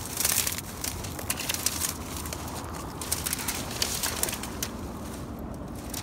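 Dry reed stems crackling and rustling underfoot in a run of uneven crunches, loudest about a second in and again a few seconds later.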